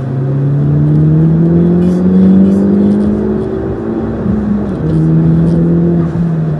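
Vehicle engine accelerating: its pitch climbs steadily for about four seconds, drops sharply as it shifts up, then runs steadier at the new gear.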